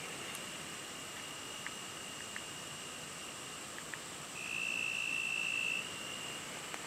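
Evening insect chorus: a steady high trilling, with one insect trilling much louder at the same pitch for about a second and a half just past the middle, and a few faint ticks.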